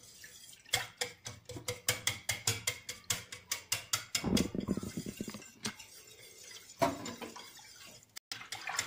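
Wire whisk stirring a thin milk-and-starch mixture in a stainless steel saucepan, its wires clinking rapidly against the pan's side. About four seconds in the clinks give way to a lower swishing for a second or so, then come only now and then.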